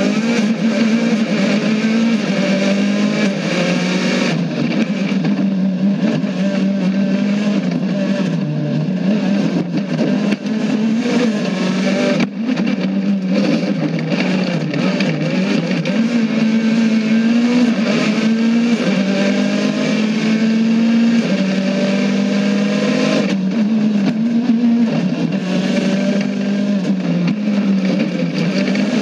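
Engine of a WRC rally car heard from inside the cabin, running hard at high revs. Its note climbs sharply at the start, then keeps rising and dipping with throttle and gear changes.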